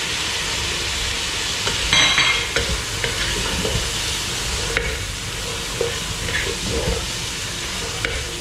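Wooden spoon stirring chopped cabbage, carrots, capsicum and chicken through hot oil in a non-stick pot, with steady sizzling of the stir-fry and the spoon knocking and scraping in the pot. A brief sharper clatter comes about two seconds in.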